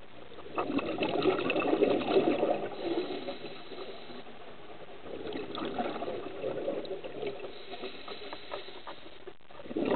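Scuba diver's exhaled air bubbling out of the regulator underwater, in surges: a strong one from about half a second to three seconds in, a weaker one around five to seven seconds, and another starting at the very end.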